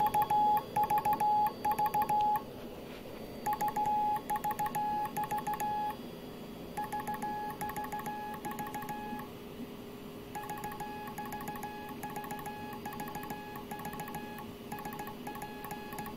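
Morse code sent by hand on a Junkers straight key: a steady, mid-pitched sidetone beeping in short and long dots and dashes, in four runs with short pauses between them, with the key's contacts clicking at each press and release. The beeps are quieter after about six seconds.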